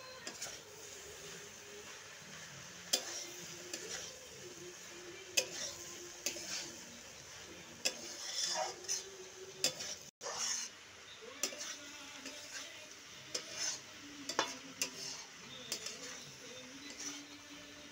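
A spatula stirring and scraping vegetables around a metal kadai, with irregular scrapes and clinks against the pan over a low sizzle of frying.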